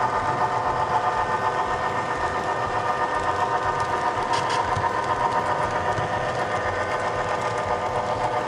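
HO-scale model train running along the track, heard from a car riding in the train: a steady mechanical hum with a rapid regular pulse, and a brief hiss about four seconds in.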